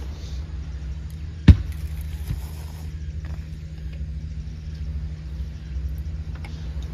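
A steady low rumble, with one sharp knock about one and a half seconds in and a fainter one shortly after.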